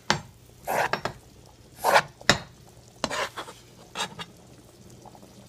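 Back of a knife blade scraping bits of Hungarian dumpling dough off a board into a pot of boiling water, in short scraping strokes about once a second, with a sharp metal click a little over two seconds in.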